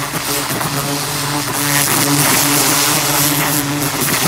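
Pressure washer running: a steady motor drone under the loud hiss of the high-pressure jet cutting into the soil of a flower bed, churning up dirt and roots.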